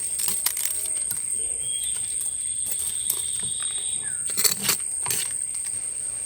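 A steady high-pitched insect drone, cricket- or cicada-like, with scattered clicks and crackles. The crackles are loudest about four and a half and five seconds in. A thinner high tone is held for about two seconds near the middle.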